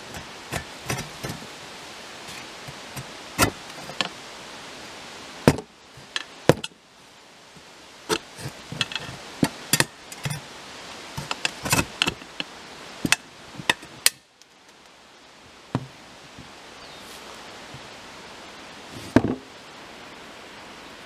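Hand hacksaw working at the steel socket of a broken shovel, giving uneven strokes with sharp, irregular clicks and knocks of the blade and frame against the metal. It is busiest in the middle and goes quiet a little after halfway, with one last knock near the end.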